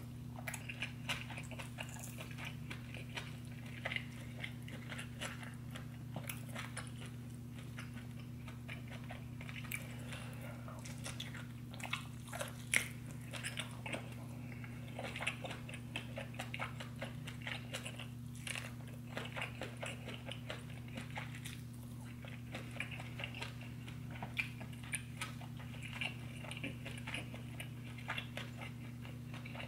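Close-miked wet chewing and biting of buttery seafood boil, a dense run of small smacking and squishing mouth clicks. A steady low hum runs underneath.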